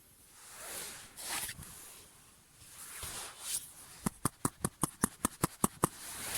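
Soft rustling, then a quick run of about ten sharp clicks, roughly five a second, stopping about a second before the end.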